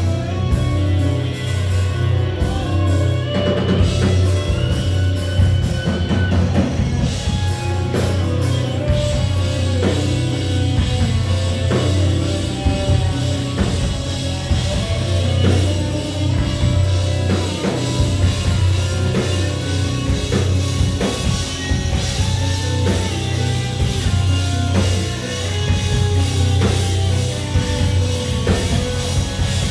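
Live rock band playing: electric guitar and bass guitar over a drum kit and keyboard, with a heavy, steady bass line.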